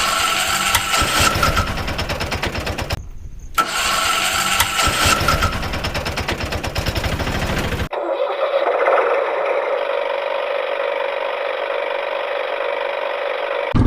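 Vehicle engine starting and running with a rattly, rapid firing beat; it stops for about half a second around three seconds in and starts again. About eight seconds in it changes to a steadier, thinner engine hum without the low rumble.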